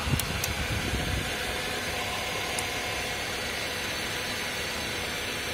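Second-generation Honda CR-V engine idling steadily under the open hood while its charging system is being checked at the battery. Two faint clicks come near the start.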